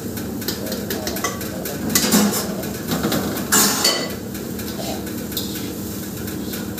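Metal clanking and scraping against a wok as steamed rice is tipped in from a steel pot and stirred with a ladle, with the loudest clanks about two and three and a half seconds in.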